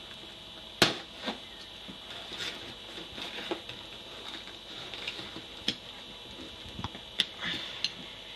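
Cardboard shipping box being handled and pried open by hand: scattered rustles and scrapes of cardboard flaps with a few sharp clicks, the sharpest about a second in, over a steady faint high hiss.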